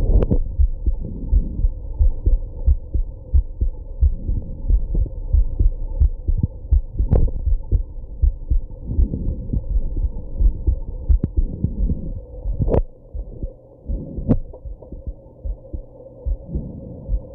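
A woman's heartbeat as a run of low thuds, recorded after drinking alcohol and smoking. A few sharper jolts from hiccups break in, the strongest about two-thirds of the way through.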